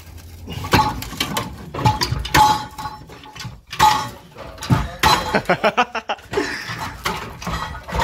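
Metal exhaust pipe being twisted and yanked where it joins the muffler: irregular clanks, knocks and scraping rattles with a short metallic ring, the pipe stuck fast in the muffler.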